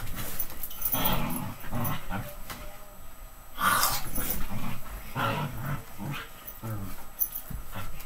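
Dog growling in play, in a run of short rough bursts, with a louder, sharper burst about three and a half seconds in.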